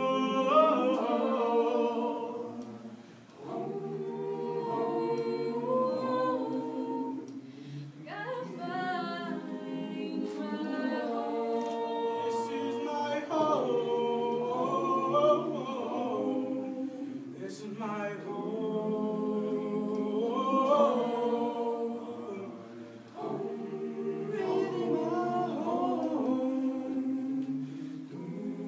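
Mixed-voice youth choir singing a cappella, several voice parts in harmony, in phrases with brief dips between them.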